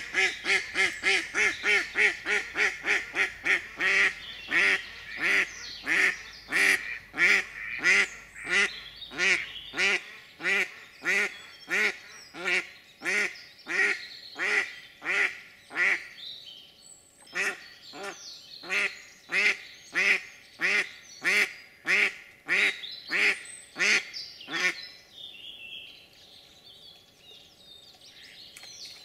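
Live decoy hen duck quacking in one long unbroken run, the calling used to draw drakes in. The quacks come fast at first, then slow, and stop about 25 seconds in, leaving faint small-bird chirps.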